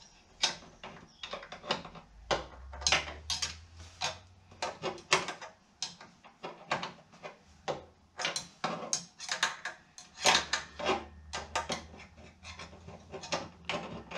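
Irregular metallic clicks and clinks of a small hand tool and fasteners being worked at the riving knife and blade guard mount down in a table saw's blade opening, as the knife is adjusted and tightened.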